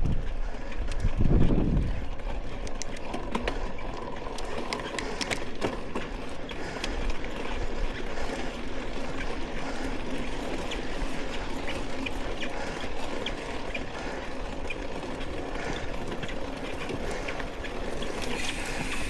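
Mountain bike rolling along a dirt forest trail: steady tyre and wind noise with many small clicks and rattles from the bike, and a heavier thump about a second and a half in.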